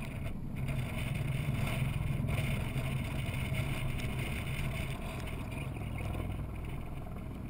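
A steady low engine hum, like a vehicle or machine running at an even speed, over a faint outdoor hiss.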